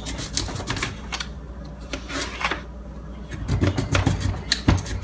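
Kitchen knife cutting through a raw sweet potato and clicking against the cutting board, in several quick runs of cuts with short pauses between.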